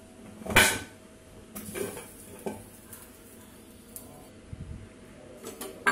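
Aluminium pressure cooker lid being worked loose and lifted off once the pressure has dropped: a loud metal clank about half a second in, a short hiss, then lighter clicks and knocks of metal on metal.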